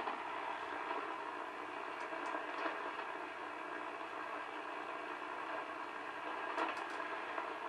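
Steady hiss of static from a Hallicrafters SX-100 shortwave receiver's speaker, with a few faint clicks.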